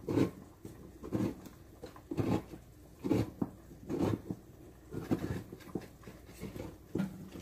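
Cookware and utensils knocking and scraping in a series of short, dull strokes, about one a second.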